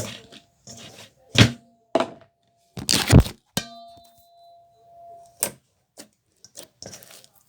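A series of knocks and thuds from hard objects, with a loud clatter about three seconds in. After it something rings with a clear ding for almost two seconds, cut off by a click.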